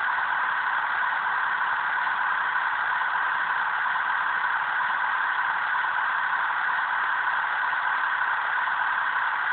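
HO scale switcher locomotive's sound-effects system playing a steady engine sound through its tiny onboard speaker, thin and without bass.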